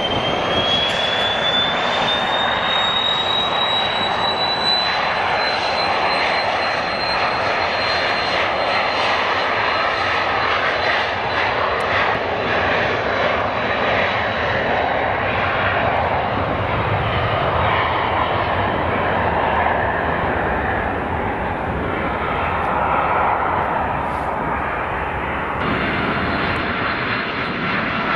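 A Cessna Citation business jet's twin turbofan engines running at high power, a high whine rising in pitch over the first several seconds and then holding steady over a broad jet rush. Near the end the sound changes to a different jet's duller rush as a Boeing 747-8 freighter approaches.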